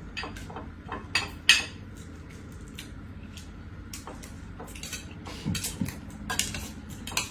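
Spoons scraping and clinking against plates as people eat rice, in short irregular clicks and scrapes, the sharpest about a second and a half in.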